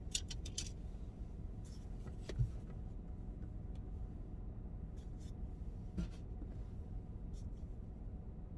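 Steady low hum of a car's engine running while parked, heard from inside the cabin, with light clicks and taps of makeup cases being handled and a soft thump about two and a half seconds in.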